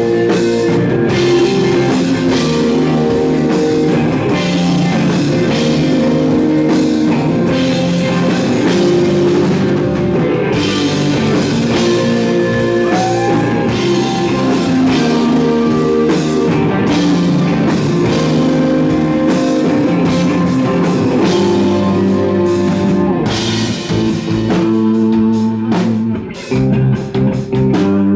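Live psychedelic rock band playing an instrumental piece: electric guitar and bass holding long notes over a drum kit, loud and steady, the level dipping briefly a few times near the end.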